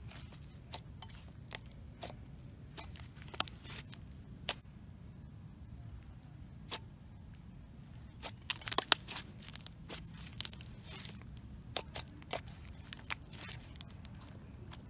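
Thick, soft butter-textured slime pressed and squeezed by hands, giving irregular sharp clicks and pops as air pockets burst, with a denser run of louder pops about eight to eleven seconds in.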